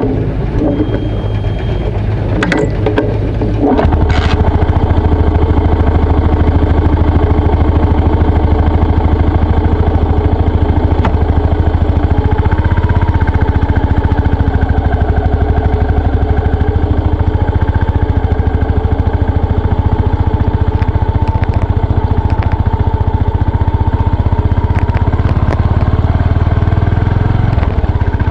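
Yamaha SR400's air-cooled single-cylinder engine starts after a few mechanical clicks about four seconds in, then runs steadily at idle.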